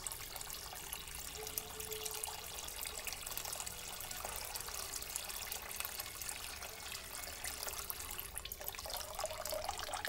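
Water running from a corrugated hose into a half-full plastic tub: a steady splashing and bubbling as the stream hits the water's surface.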